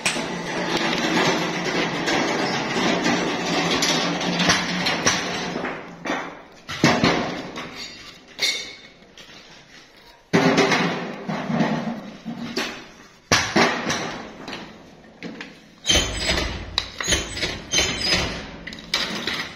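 Metal tractor air-filter casings and rubber sealing rings being handled: a dense run of clattering and rubbing for the first six seconds or so, then separate sharp knocks every few seconds as filters are set down on the concrete floor.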